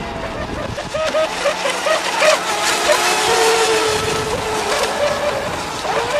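Gasoline two-stroke engine of a radio-controlled model powerboat running at high revs as the boat speeds past and rounds a buoy. Its pitch warbles rapidly for a couple of seconds, then holds steadier.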